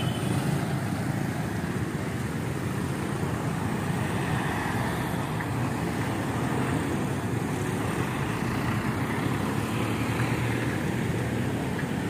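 Steady road traffic noise: motorcycles and other motor vehicles running around the roundabout, a continuous low hum without any single event standing out.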